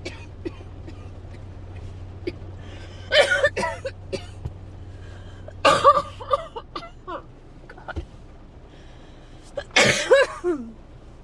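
A person's dry coughing fit: three harsh bouts of coughs, about three, six and ten seconds in, each a quick cluster of coughs. The uploader takes the persistent cough as a sign of getting sick.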